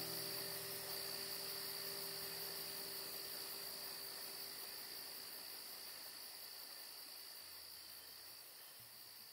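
Crickets chirping steadily over a few faint held musical tones that die away, the whole sound slowly fading out.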